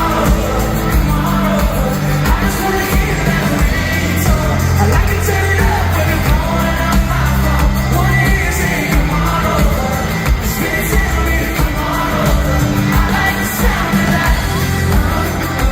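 Live country-pop band performance in an arena: a male lead vocal sings over drums, bass and guitars.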